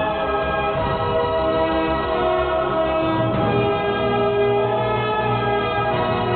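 Music with long held, choir-like chords that change to a new chord about halfway through.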